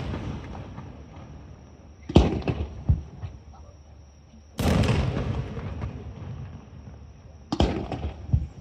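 Fireworks shells bursting overhead: a sharp bang about two seconds in with a second close behind it, then a burst about halfway whose sound trails off over a couple of seconds, and two more bangs near the end.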